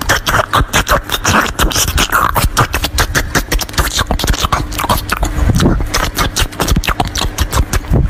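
Close-miked eating sounds: a dense, continuous run of crisp crunching and chewing, sharp crackles packed closely together.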